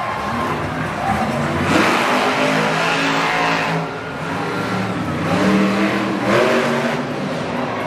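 Monster truck's supercharged V8 engine revving hard in several rising and falling surges as the truck is driven around and up onto two wheels.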